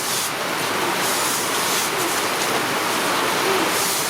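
Steady hiss of heavy rain falling, with water running and splashing on the ground.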